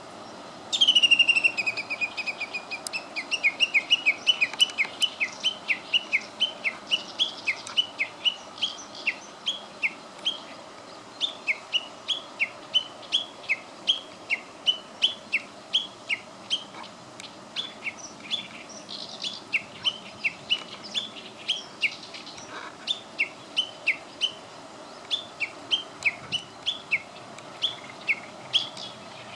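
Japanese bush warbler (uguisu) calling: one long whistle that slides slightly down in pitch, then a long run of short, sharp notes at about three a second.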